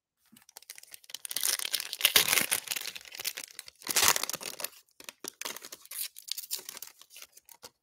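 A Panini Prizm foil trading-card pack being ripped open by hand, its foil wrapper tearing and crinkling. The noise comes in several spells and is loudest about two and four seconds in.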